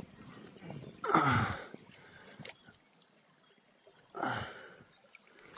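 River water sloshing and gurgling around a camera dipped at the surface, in two brief surges about three seconds apart, each sinking in pitch.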